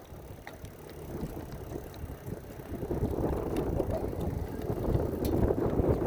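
Wind buffeting the microphone over the road and tyre noise of a Lectric XP 2.0 e-bike being ridden. The rumble grows louder about halfway through.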